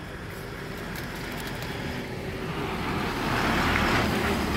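A large road vehicle passing close by, its engine rumble and road noise building steadily to a peak near the end.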